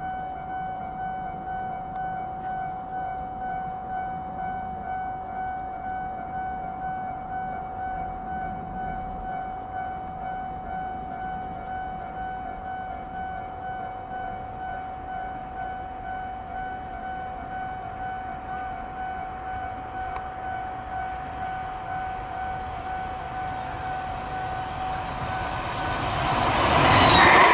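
Railway level-crossing warning bell ringing in an even repeat of about two strokes a second. Near the end it stops, as a train's running noise quickly grows loud.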